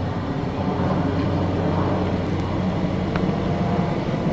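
Airplane flying overhead, a steady low rumble.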